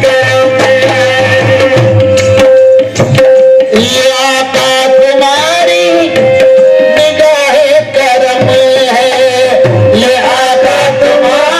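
Devotional music: a voice singing over tabla drumming and one steady held drone note.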